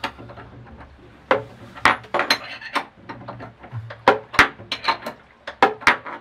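Tools clinking and knocking irregularly against hard fittings inside a yacht's ballast tank during a repair to a cracked chain plate, over a low steady hum.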